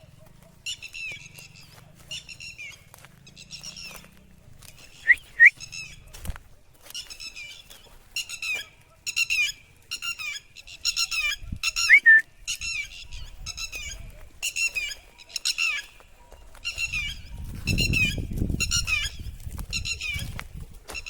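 A bird calling over and over: short, high, harsh calls coming about one to two times a second. Two sharp rising chirps, about five and twelve seconds in, are the loudest sounds. A low rumbling noise swells up near the end.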